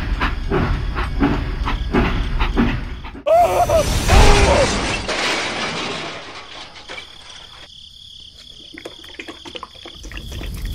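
Toy steam locomotive chugging at about three beats a second, then about three seconds in a sudden loud crash with breaking and clattering as the train derails and its wagons tip over, dying away into scattered small rattles.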